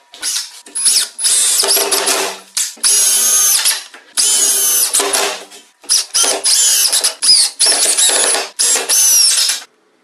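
Cordless drill-driver driving wood screws through a steel bracket into plywood, in several bursts of motor whine that dip in pitch within each burst, stopping abruptly near the end.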